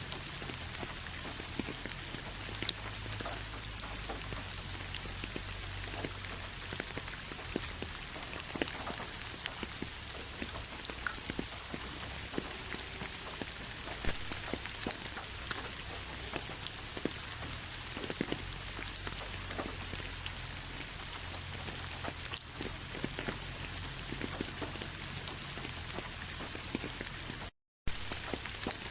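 Steady rain, with many separate drops ticking sharply over the even hiss. The sound cuts out completely for a split second near the end.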